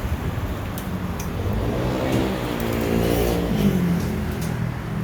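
A motor vehicle's engine passing by, its pitch rising and then falling away over about two seconds, over steady background noise.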